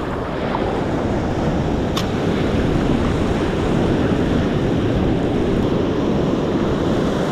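Ocean surf breaking and washing up the beach, with wind buffeting the microphone. A single faint click about two seconds in.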